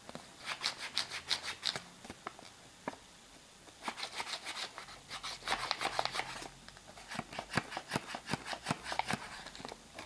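Folded paper of an origami flapping bird rustling and crackling as hands work it, in three bursts of quick rubbing strokes.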